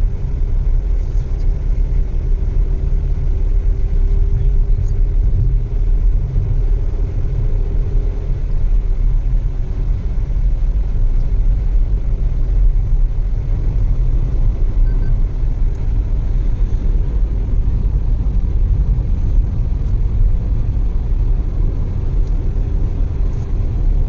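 Car cabin noise while driving at speed on a smooth expressway: a steady low rumble of tyres on the road and the engine. A faint steady hum fades out about eight seconds in.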